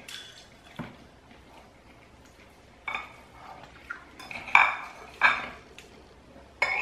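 Metal knife and fork cutting and scraping against a ceramic bowl, a handful of short separate clinks and scrapes, the loudest about two-thirds of the way through.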